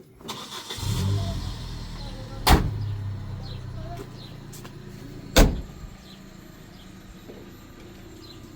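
A car engine starts and runs steadily. Two sharp bangs, like car doors shutting, come about two and a half seconds apart.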